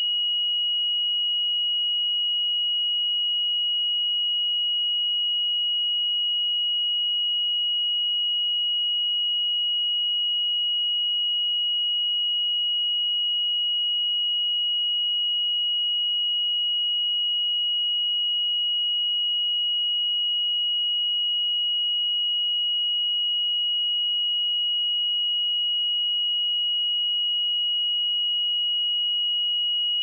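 A pure 2901 Hz sine-wave test tone, a single steady high-pitched beep held without change.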